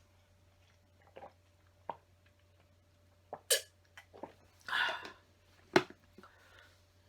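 A person taking a drink of a fizzy drink: scattered small clicks and knocks with mouth and breath sounds, a breathy patch about five seconds in, and a sharp knock shortly after.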